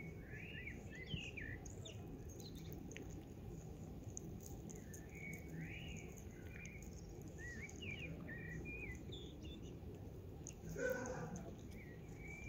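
Small birds chirping in clusters of short, arching notes over a steady low hum of outdoor background noise, with one short lower vocal sound near the end.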